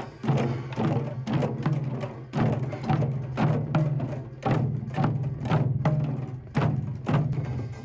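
Background music with a steady percussive beat, about two strikes a second over a low sustained tone.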